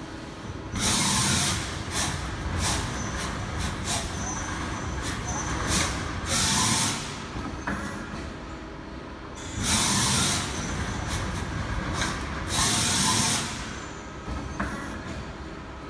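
Short bursts of compressed air hissing, four times, each under a second long, over a steady workshop machine hum with scattered clicks.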